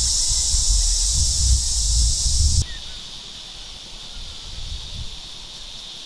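Steady, high-pitched insect chorus with low rumbling underneath; about two and a half seconds in it cuts off abruptly and a fainter, lower-pitched insect drone carries on.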